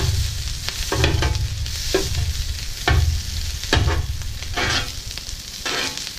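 A metal spatula chopping and scraping sausage on a Blackstone griddle's steel top, about one stroke a second, over the sizzle of the meat frying, with a low rumble underneath.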